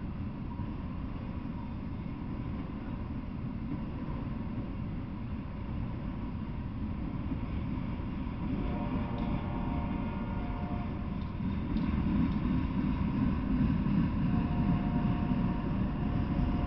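Freight train of autorack cars rolling past: a steady low rumble of wheels on rail that grows louder about twelve seconds in. Faint steady higher tones come and go through the second half.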